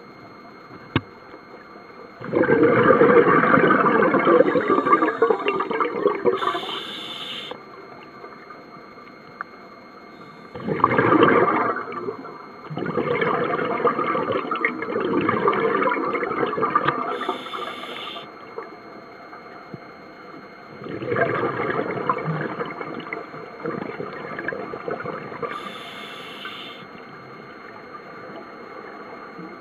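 Scuba diver breathing through a regulator underwater: exhaled air bubbles out in long rumbling bursts, each followed by a short hiss as the next breath is drawn through the regulator, about three breaths in all.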